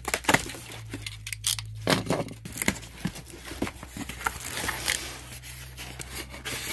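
Utility knife slitting packing tape on a cardboard box, then the cardboard flaps being pulled open and handled, a run of sharp scrapes, tearing and taps over a steady low hum.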